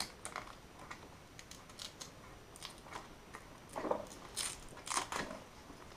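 Hands handling the rubber high-pressure hose on a Kränzle pressure washer's plastic hose reel: faint scattered clicks and rustles, with a few louder rubs and knocks about four and five seconds in.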